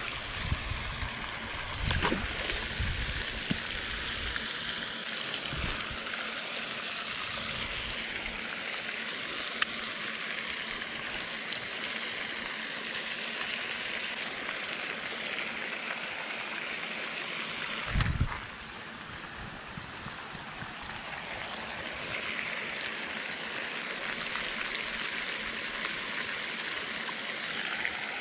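Steady splashing of a pond's aerator fountain, a continuous even rush of falling water. A few short knocks come through it, the loudest a low thump about two-thirds of the way through.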